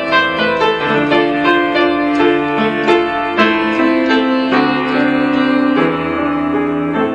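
Instrumental break in a slow gospel song: piano playing chords and a melody between sung verses.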